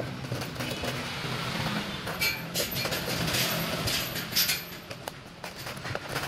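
Loud slurping through a straw at the bottom of a near-empty plastic cup of iced drink, sucking air, ice and pearls, for about two seconds starting about two seconds in. A few light clicks of ice shifting in the cup follow. A steady low hum runs underneath.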